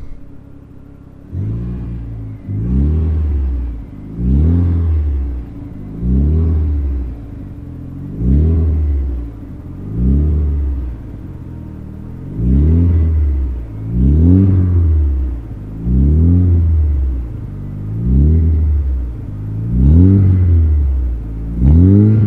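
Mitsubishi Lancer Evolution IX's turbocharged four-cylinder engine idling through a 3.5-inch stainless exhaust with Reaper resonator and muffler, the throttle blipped about a dozen times, roughly every two seconds. Each blip is a quick rev that rises and falls back to idle.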